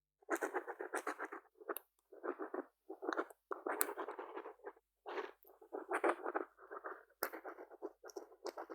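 Pen writing on paper: scratchy strokes in short runs of about half a second to a second, broken by brief pauses, with a sharp tick a little under four seconds in.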